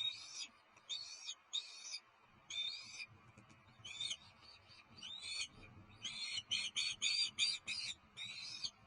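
Small birds calling with short, high-pitched calls about once a second, then a quick run of about seven calls a couple of seconds before the end.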